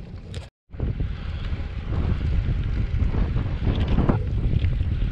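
Wind buffeting the microphone of a moving bicycle: a loud, uneven low rumble, broken by a moment of silence about half a second in.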